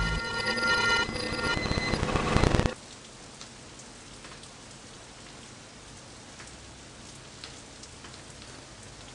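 Horror-film score of sustained, layered tones over a heavy low rumble, cutting off suddenly under three seconds in. A faint steady hiss with a few small ticks follows.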